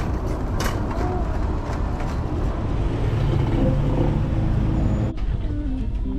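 Steady low rumble of vehicle road noise with a few scattered clicks. About five seconds in it cuts off suddenly and guitar music begins.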